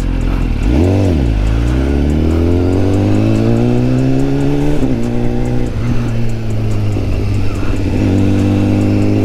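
Sport motorcycle engine heard from the rider's seat: a quick throttle blip about a second in, then revving up steadily under acceleration, a drop in pitch at an upshift about five seconds in, and climbing again near the end.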